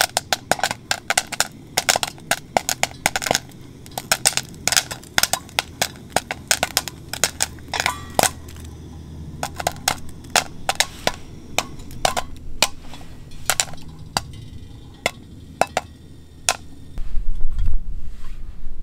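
Popcorn kernels popping in hot bacon grease: a fast run of sharp pops that thins out to scattered single pops. A low rumble comes in near the end.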